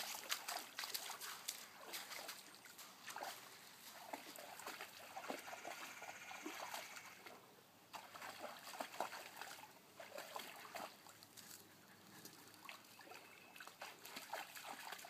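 A German shorthaired pointer wading in a shallow creek: faint, irregular splashing and sloshing of water around its legs as it steps and feels about with its feet, over the light trickle of the stream.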